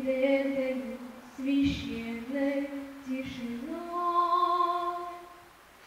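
A boy singing a slow song unaccompanied into a microphone, in several sung phrases. The last phrase is a long held higher note that fades out near the end.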